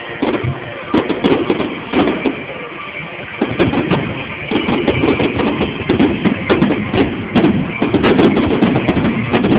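Fireworks going off: a run of sharp bangs and cracks that comes thicker and faster about three and a half seconds in.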